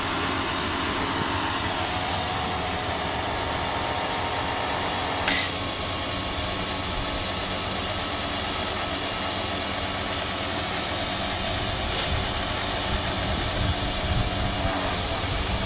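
A small electric pressure washer running steadily, its motor and pump making a loud, even whine. There is a single brief click about five seconds in.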